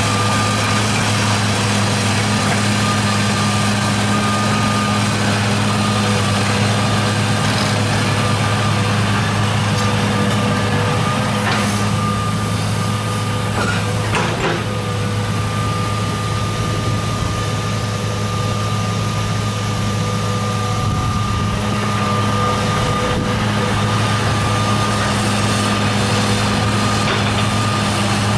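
John Deere 200 excavator's diesel engine running steadily under load as it digs, with a steady high whine over the engine note. Two faint knocks come around the middle.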